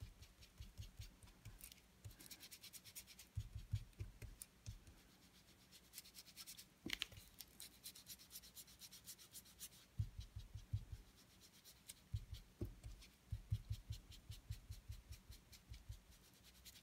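Round foam ink-blending tool rubbed in quick small circles over cardstock, blending Distress ink into a sky: a faint, rapid scratchy rubbing in spells, with short pauses.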